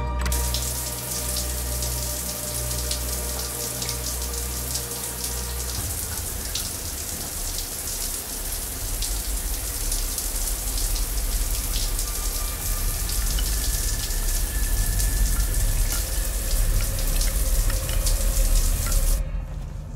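A steady, rain-like hiss with fine crackles over a low rumbling drone. It grows louder through the second half and cuts off suddenly about a second before the end.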